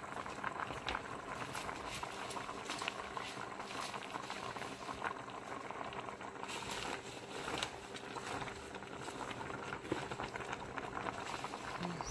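Pot of sinigang soup boiling under a heap of freshly added water spinach (kangkong) leaves: steady bubbling with many small pops.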